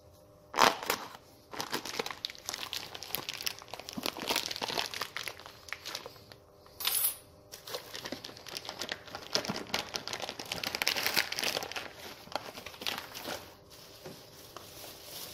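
Plastic wrapping around a new SKF roller bearing being cut and torn open by hand, crinkling and crackling in irregular bursts.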